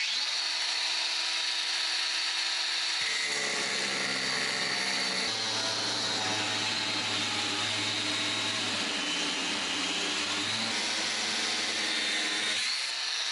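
Bosch GWS18-125V-LI 18V cordless angle grinder with a 125mm disc cutting steel. It gives a steady high whine and hiss, with lower tones that shift in pitch a few times as the cut goes on.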